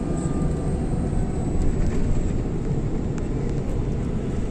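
Steady low rumble of a tour bus on the move, heard from inside the cabin: engine and road noise, with a few faint light clicks.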